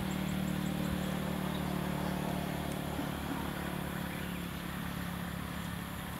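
A motor running steadily, an even low hum with a fast pulse beneath it.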